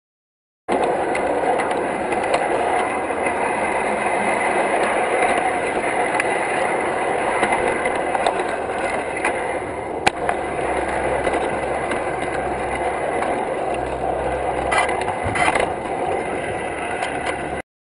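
Ride-on miniature steam railway in motion: a steady rattle of wheels rolling on the track, starting about a second in.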